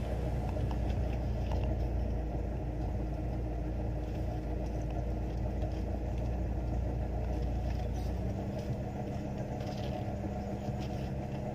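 Car engine and road noise heard from inside the cabin of a manual car on the move: a steady low hum. About eight seconds in, the engine note shifts slightly higher.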